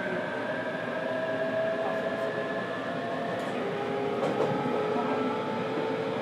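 Onboard running sound of a JR Kyushu 817 series 3000-subseries electric train car with a Hitachi IGBT VVVF inverter. The traction motors and inverter whine in several tones that drift slowly lower, over a steady rumble of wheels on rail.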